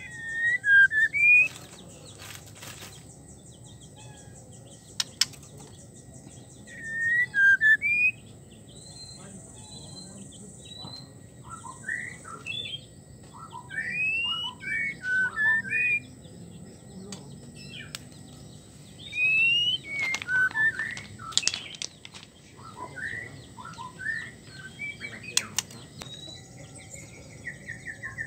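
White-rumped shama calling in short bursts of swooping whistled notes, a handful of phrases with pauses between, with a few sharp clicks among them. The uploader presents it as a female's breeding call to a male.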